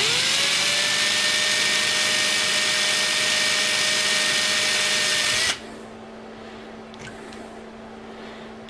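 Electric drill running a small bit into an RC jet boat's pump housing: the motor whine rises as it spins up at the start, holds steady for about five seconds, then stops.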